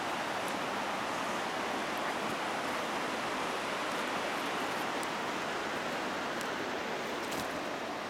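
Steady rush of falling water from a waterfall, an even hiss-like noise without change.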